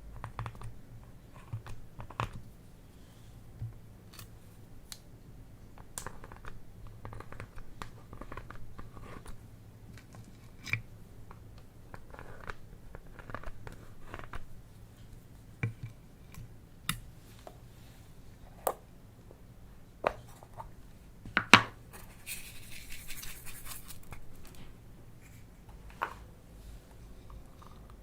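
Small plastic items being handled close to the microphone: scattered sharp clicks, snips and scrapes, with a few seconds of rustling about three-quarters of the way through.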